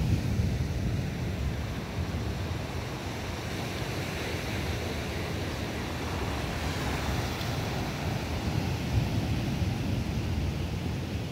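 Wind buffeting the microphone with a low rumble, over the wash of sea waves breaking on the shore.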